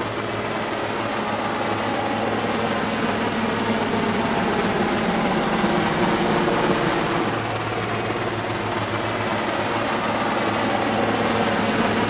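Heavy-lift helicopter of about 1,200 horsepower flying overhead: steady engine noise with the even beat of its rotor blades.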